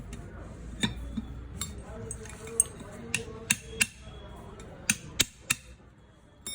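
Sharp metallic taps and clinks of a tool striking metal during work on a jet pump's broken pipe, about ten at irregular spacing, with two quick runs of three taps near the middle.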